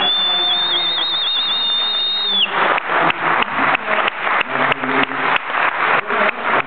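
Audience at a medal ceremony: a high, wavering whistle held for about two and a half seconds, then the crowd breaks into rhythmic clapping in unison, about three claps a second.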